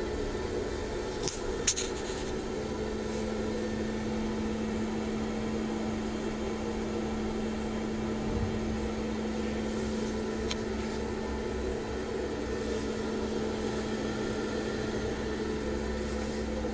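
Moving-head stage lights' cooling fans and motors running with a steady hum and a constant low tone. A couple of sharp clicks come about a second and a half in, and another about ten seconds in.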